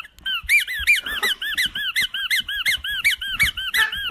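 Sophie la girafe rubber squeaky toy squeezed over and over: a quick, even run of squeaks, about three a second, each rising then falling in pitch.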